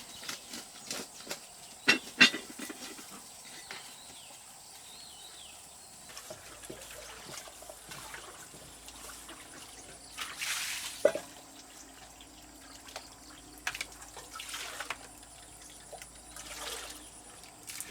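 Water splashing or pouring in a few short bursts, with a couple of sharp knocks about two seconds in.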